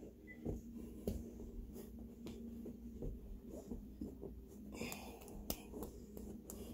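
Faint rustling and a few soft knocks of bodies shifting on an exercise mat close to the phone's microphone, over a faint steady low hum.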